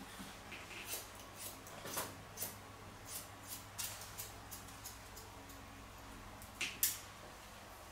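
Hairdressing scissors snipping through dry hair: a string of short, crisp snips at an uneven pace, with two louder snips close together near the end.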